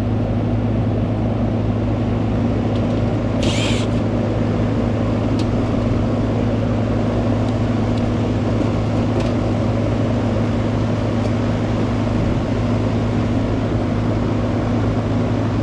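Outdoor air-conditioning condensing unit running: a steady hum from the compressor with the whoosh of the condenser fan. A short high hiss cuts in about three and a half seconds in.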